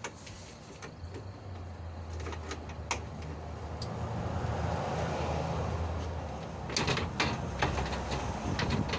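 Scattered sharp clicks and knocks with a scraping rasp from hand work prying at a car's engine cooling fan assembly to get the broken fan out. A steady low hum runs underneath, and the clicks come thicker near the end.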